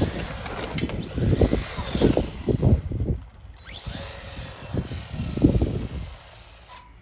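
Remote-control truck's motor whining, rising and falling in pitch as the truck speeds up and slows, twice, with gusts of wind buffeting the microphone.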